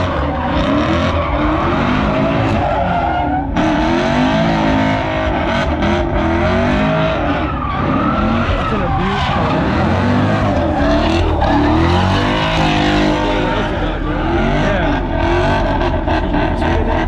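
Car doing donuts: the engine revs up and down continuously over the constant squeal and hiss of spinning, skidding tyres.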